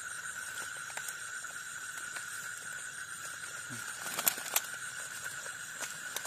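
A long-handled digging blade working into soft soil at a cricket burrow: faint scrapes and clicks, with two sharper knocks just over four seconds in. Behind it, a steady high-pitched chorus of night insects.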